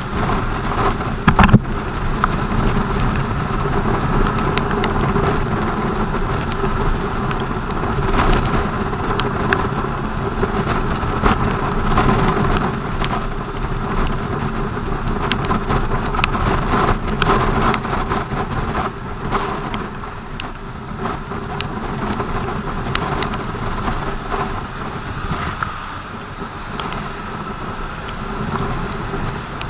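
BMW R 1200 GS boxer-twin motorcycle being ridden, its engine running under steady road and wind noise, with many scattered sharp ticks and a couple of louder knocks about a second and a half in.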